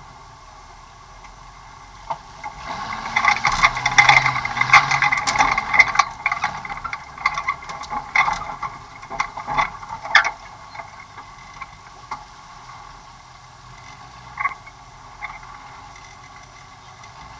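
Off-road vehicle's body and fittings rattling and clattering as it bounces over rough, rutted ground, heaviest for several seconds from about three seconds in, with a couple of single knocks near the end, over the steady drone of its engine.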